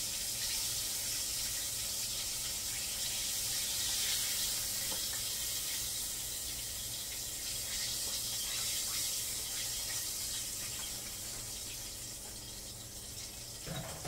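Whiting fillets deep-frying in hot oil: a steady hiss that eases off over the last couple of seconds, with a short knock near the end.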